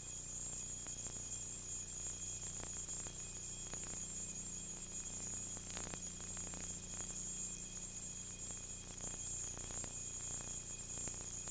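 Steady hiss and electrical hum from a second-generation VHS tape dub, with a steady high whine over it and a few faint clicks.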